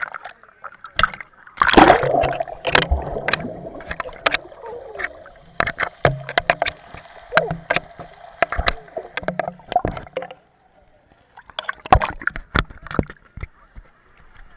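Sea water sloshing and splashing close to the microphone, with many sharp knocks and clicks. It drops out briefly about ten seconds in, then starts again.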